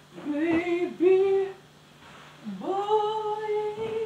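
A woman singing a slow, wordless tune in two phrases, the second swooping up into a long held note near the end.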